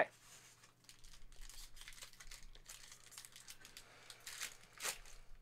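Foil trading-card pack crinkling as it is handled and torn open by hand: faint crackling, with two louder rips near the end.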